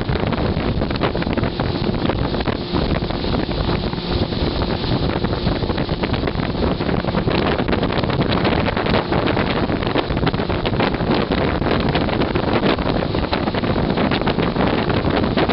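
Wind buffeting the microphone aboard a fast-moving open motorboat, over the steady running of its motor and rushing water.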